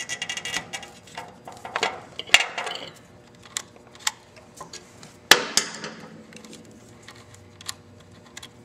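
Socket wrench and small metal hardware clicking and clattering on a motorcycle battery terminal bolt: a quick run of ratchet-like clicks at the start, sharp metallic knocks about two and a half and five seconds in, then scattered light taps.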